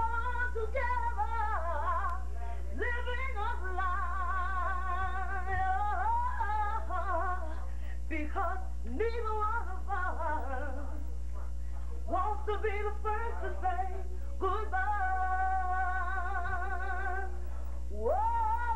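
A woman singing a slow song unaccompanied, in long held notes with vibrato and scooping up into each phrase, over a steady low hum.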